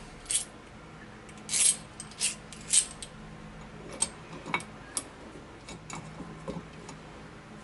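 Hand tools and metal parts being handled: a series of separate short metallic clinks and rattles, the louder ones in the first three seconds, then lighter ticks.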